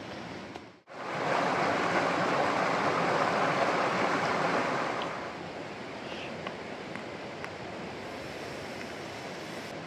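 Water of a stream rushing, with no pitch to it. It starts abruptly about a second in, is loudest for the next four seconds, then settles to a steadier, quieter rush with a few faint clicks.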